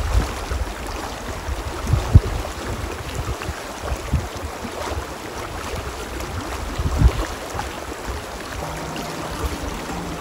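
Shallow river running steadily over gravel, a continuous rush of water, with a few low thumps, the loudest about two seconds in and another about seven seconds in.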